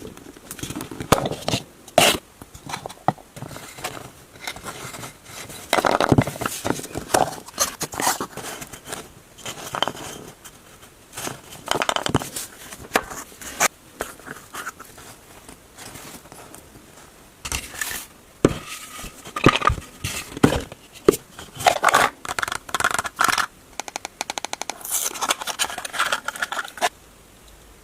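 Toy packaging being opened and handled by hand: cardboard and plastic scraping, crackling and tearing in irregular bursts with sharp clicks, stopping abruptly near the end.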